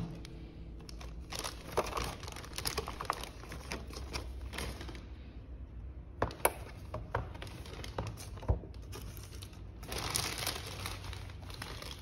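Thin plastic bag crinkling and rustling as a takeaway meal box is slid out of it, with a few sharp taps as the plastic containers are set down on the desk.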